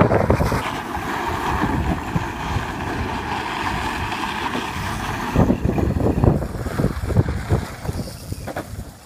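Modified 36-volt Power Wheels ride-on car spinning its plastic wheels on loose gravel with the electric motor running: a steady scraping rush. From about five seconds in, rough low gusts of wind on the microphone take over, and the sound fades near the end as the car moves off.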